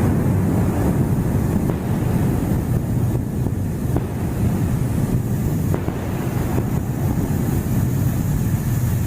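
A steady, loud low rumble of noise without a distinct boom, with a few faint clicks.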